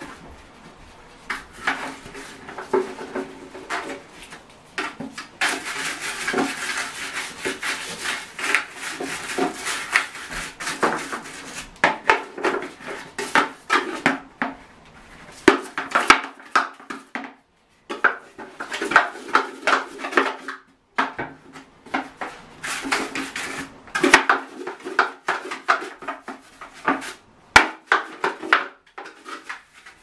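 Plastic parts of a Henry vacuum cleaner handled and scrubbed in a bathtub: the plastic knocks and clatters many times against other parts and the tub. There is a dense stretch of rubbing about a third of the way in.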